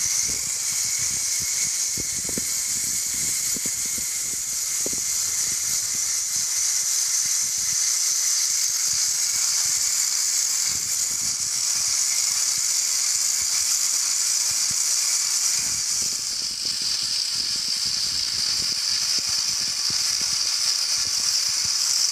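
Toy RC car's small electric motor and gears running flat out, a steady high-pitched whine as it spins donuts. It starts suddenly and cuts off suddenly.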